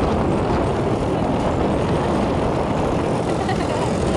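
Motorbike on the move, a steady rush of engine and road noise that holds even throughout.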